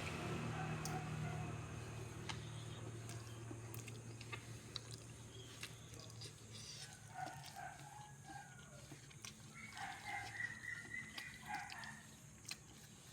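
A low hum fades away over the first few seconds, then an animal calls twice, each call run lasting about two seconds, with faint clicks scattered throughout.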